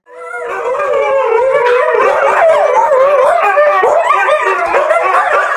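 Several dogs howling together, their wavering howls overlapping at different pitches without a break.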